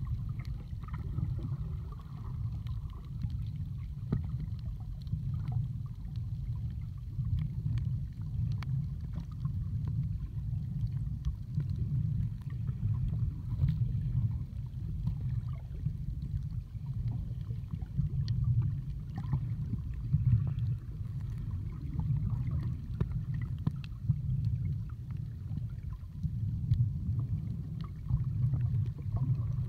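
Muffled underwater sound from a camera in a waterproof housing: a steady low rumble of moving water, with faint scattered clicks.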